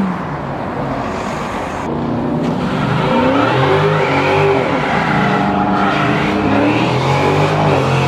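A sport motorcycle's engine and spinning tyre at first, then a Dodge Charger's engine revving in rising and falling pulls as it pulls away. Near the end it is held at high revs in a burnout, with the rear tyres spinning.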